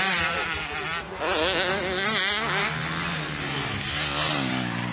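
Motocross bike engines revving, their pitch rising and falling quickly with the throttle; from about halfway a second engine holds a steadier, lower note underneath.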